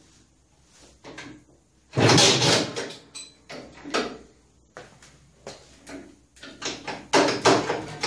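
The kickstarter of a 1959 Mitsubishi Silver Pigeon scooter's 125 cc four-stroke engine being kicked over. There is a loud mechanical clatter about two seconds in, then a run of short, sharp knocks and clunks.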